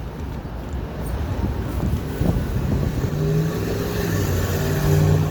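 Street traffic: motor vehicles running past, with a steady engine hum from a passing vehicle coming in about three seconds in and growing a little louder.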